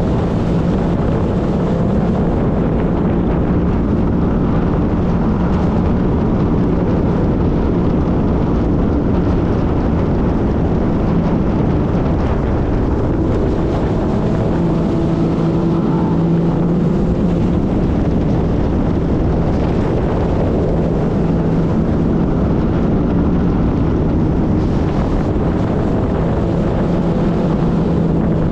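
Jet ski engine running steadily, a constant hum mixed with wind noise on the microphone.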